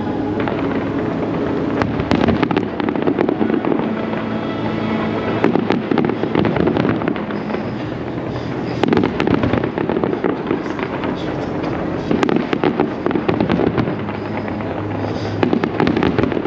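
Fireworks display: a continuous barrage of booming bursts and crackling, with many sharp bangs close together.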